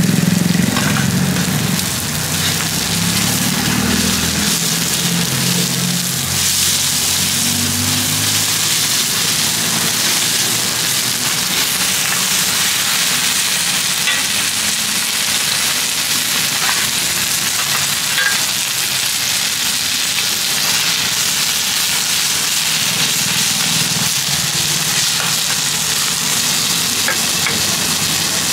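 Mussel omelettes (hoy tod) sizzling steadily in hot oil on a large flat pan.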